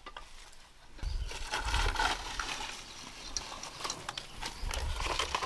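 Rustling with scattered light clicks and knocks as bamboo sticks are handled beside a plastic bag, starting about a second in, over a low rumble of handling noise.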